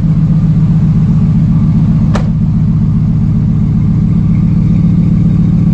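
Ford SVT Lightning's V8 idling steadily through a Bassani exhaust, still cold just after a cold start. A single sharp click about two seconds in.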